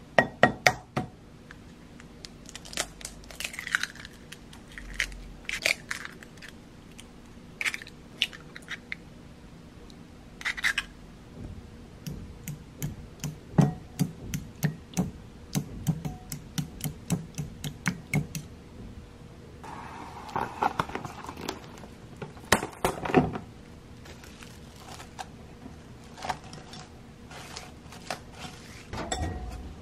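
Eggs cracked against a glass bowl, then a fork beating the eggs with quick light clicks against the glass for several seconds. Near the end, plastic cling wrap crinkles as it is pulled and torn off to cover the bowl.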